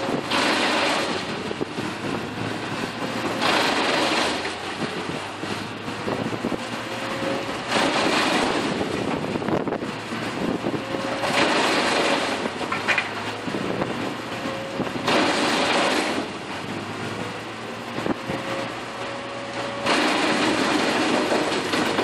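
Diesel machinery running steadily, with six loud surges of hissing noise, each half a second to two seconds long, coming every three to four seconds. A faint whine rises slowly in pitch and repeats underneath.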